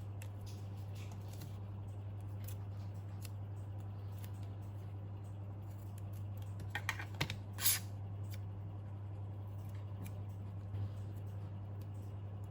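A steady low hum with a short cluster of sharp clicks about seven seconds in, the last of them the loudest, and one faint click near the end.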